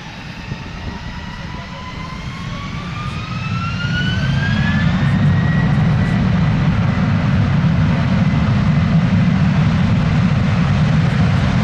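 Jet aircraft engines running: a whine rises in pitch as the sound grows louder over the first few seconds, then holds steady over a deep rumble.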